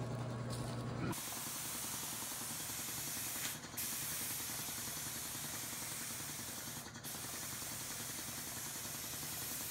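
Gravity-feed air spray gun spraying paint onto plastic fender flares: a steady hiss of air and atomised paint that starts about a second in and breaks off briefly twice, about three and a half and seven seconds in.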